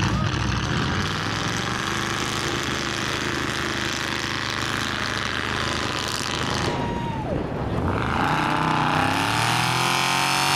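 Mud truck engine running loud and steady at high revs. About eight seconds in it gives way to music.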